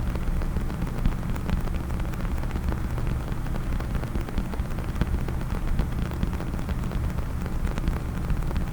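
Fingers tapping rapidly on a case, a dense, unbroken patter of small clicks.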